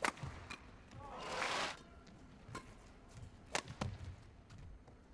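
Badminton rackets striking a shuttlecock during a rally: a handful of sharp cracks spaced unevenly, with a short rush of noise about a second in.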